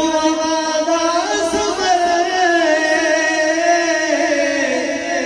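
A man singing a Punjabi devotional kalam without instruments, holding one long note that wavers slightly and sinks a little near the end.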